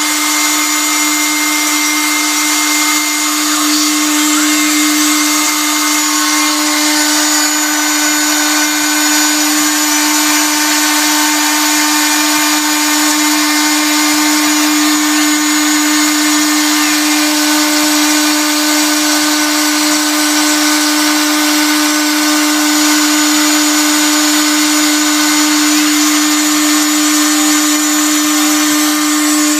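Spindle motor of a homemade CNC milling machine running at speed while its small end mill cuts a very shallow pass through 1/8-inch aluminium sheet: a loud, steady whine over a strong even hum with a cutting hiss, unchanging throughout.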